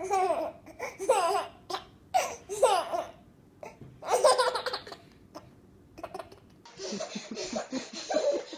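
Baby laughing in repeated peals, each a short run of falling giggles, about five of them in the first five seconds.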